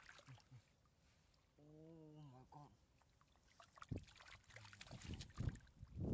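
Shallow muddy water splashing and sloshing in irregular bursts as a large fish thrashes and is grabbed by hand. The splashes start about four seconds in and grow busier toward the end.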